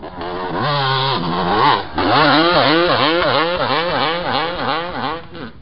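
Two-stroke motocross engine of a 2003 Suzuki RM250 being revved. After a short held rev, the throttle is blipped over and over, the pitch rising and falling about three times a second.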